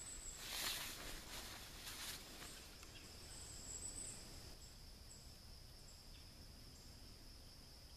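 Insects chirring steadily in a high, even drone, with a few brief higher chirps over it. A few soft rustles from handling a poncho come in the first two seconds.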